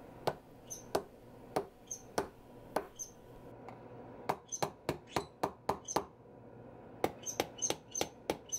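Sharp clicking taps of a screwdriver tip striking the rear glass panel of a Google Pixel 2, each tap with a short high ring. The taps are spaced at first, then come in quicker runs after about four seconds and again from about seven seconds. The glass is being struck to shatter it so it can be chipped off piece by piece.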